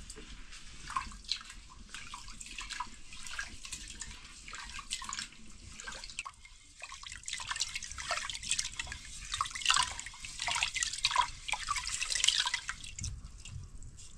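Water splashing and dripping in quick, irregular splashes, as when something is washed by hand in water, with a short lull about halfway through.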